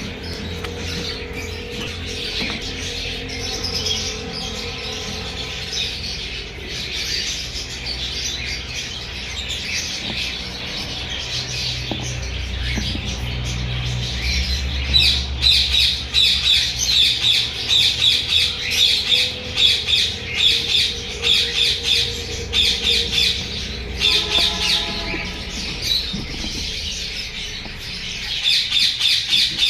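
Cockatiels calling with harsh squawks and chirps. About halfway in, the calls turn into a fast run of sharp, repeated squawks. A low steady hum runs underneath.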